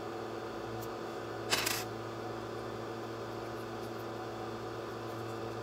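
Steady low room hum, with one short rustle about a second and a half in: hands handling the aluminium-foil strips and metal electrodes of an orange battery.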